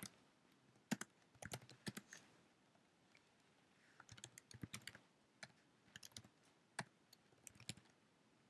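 Faint computer keyboard typing: irregular runs of key clicks as a terminal command is typed, with a pause of a second or so about a third of the way in.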